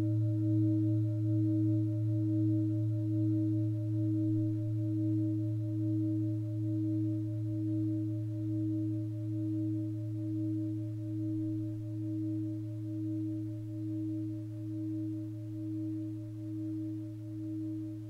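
Tibetan singing bowl sounding one sustained low hum with a few higher overtones, wavering in slow even pulses about once a second and slowly fading.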